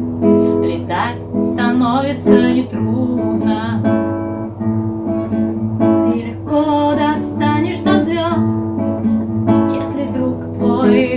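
Acoustic guitar strummed and picked in a song accompaniment, with a woman's voice singing along at times.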